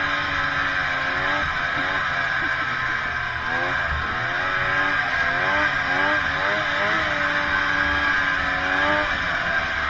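Snowmobile engine running under way, its pitch rising and falling as the throttle changes, over a steady hiss from the track and snow.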